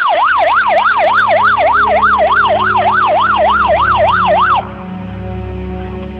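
Fire engine's electronic siren yelping, sweeping quickly up and down about three times a second. It cuts off suddenly about four and a half seconds in.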